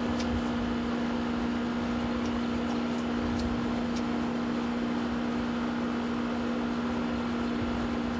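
Air conditioner running with a steady hum and a strong, even drone, with a few faint ticks over it.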